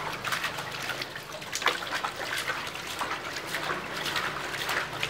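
Soapy water sloshing and splashing in a plastic washbasin as a small poodle is scrubbed and rinsed by hand, with many small irregular splashes and trickles.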